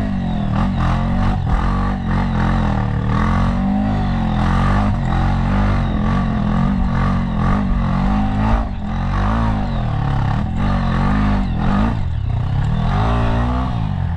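Dirt bike engine on the move over a rough trail, its pitch rising and falling as the throttle is opened and closed, with frequent knocks and clatter from the bike over roots and bumps.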